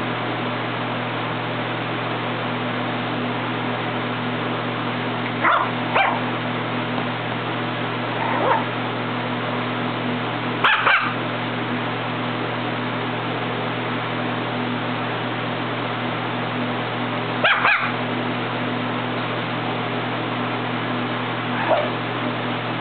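A small puppy giving short, high yips and barks, singly and in quick pairs, a handful of times with pauses between, over a steady background hum.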